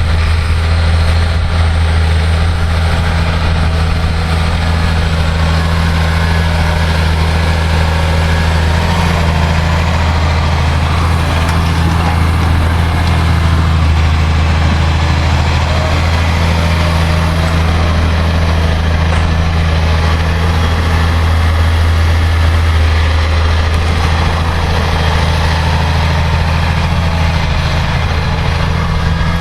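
Massey Ferguson 6490 tractor's six-cylinder diesel engine running with a steady, even low drone, pulling a four-furrow plough through wet ground.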